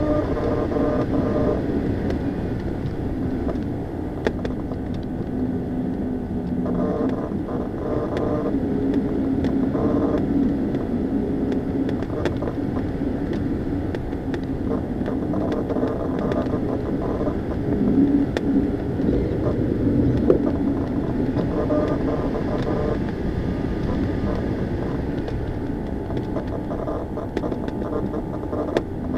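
Aircraft in flight: a steady rush of air with a droning engine tone that swells and fades at times, and a few sharp clicks.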